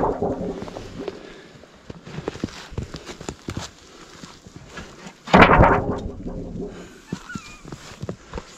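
Footsteps crunching in snow, with a sharp crack at the very start and a louder sudden bang about five seconds in that dies away over about half a second.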